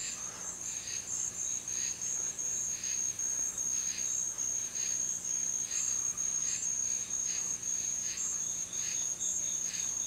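Night insects calling: a steady high cricket trill, with a second insect chirping in short pulses about every two-thirds of a second.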